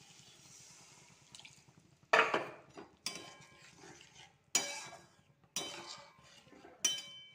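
Water poured into a hot metal pan of fried curry masala, with a faint hiss at first. About five sharp clanks follow against the metal pan as the bowl is emptied and the gravy is stirred, each ringing briefly.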